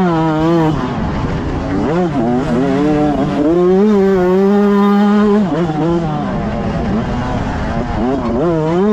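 125cc two-stroke motocross bike engine revving hard, its pitch rising and falling with the throttle. It holds high revs for about two seconds in the middle, drops off, then climbs again near the end.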